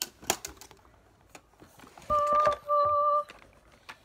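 Metal clicks from an aluminium makeup train case as its latches and trays are opened, followed about two seconds in by two short, steady tones at the same pitch, one right after the other, which are the loudest sound.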